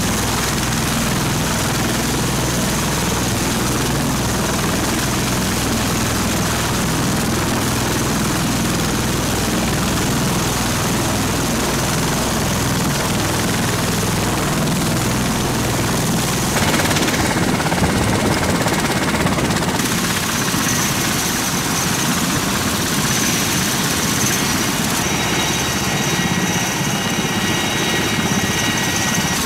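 MV-22 Osprey tiltrotor running on deck with both proprotors turning: a loud, steady thrum of rotor blades over engine noise. A higher steady whine joins in over the last few seconds.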